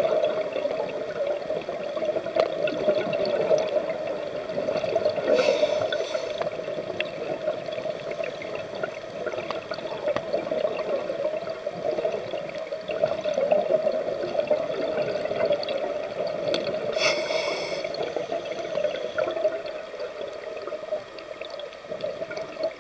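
Steady underwater wash of water picked up by a submerged camera, with two short hissing breaths from a scuba diver's regulator, about five seconds in and again about seventeen seconds in.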